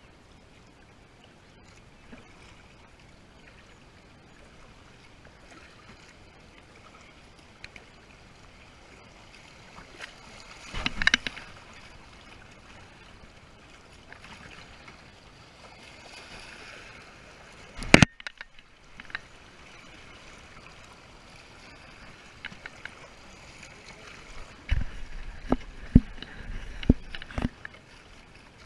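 Kayak paddling: paddle blades dipping and splashing in creek water, over a steady wash of moving water. A single loud, sharp knock comes about two-thirds of the way in, and a run of knocks and thumps near the end.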